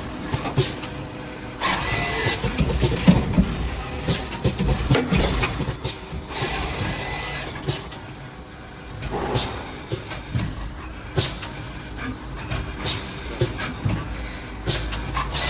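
Automatic drill-bit straightening machine running: mechanical clatter with sharp clicks and knocks at uneven intervals. It is louder from about two to five seconds in, with a brief high whine around six to seven seconds in.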